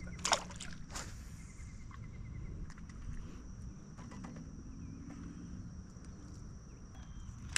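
Steady high-pitched insect drone over a low rumble, with a sharp knock just after the start, a second about a second in, and a few lighter clicks.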